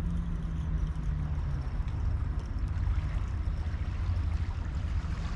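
Steady low engine hum and rumble, like a boat's engine running, over the wash of sea water.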